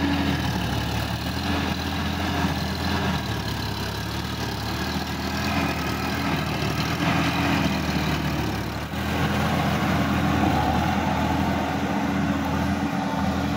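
Sonalika DI-50 RX tractor's diesel engine running steadily while it drives a rotary tiller through flooded paddy mud.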